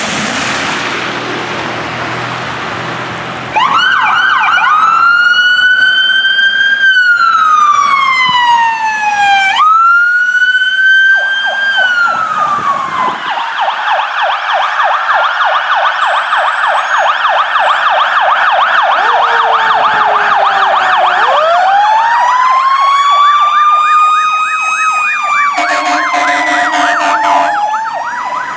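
Fire apparatus sirens: a siren wails up and down, restarts, then switches to a fast yelp. About three quarters through, a second siren winds up slowly from a low pitch, and horn blasts sound near the end as a fire engine passes close.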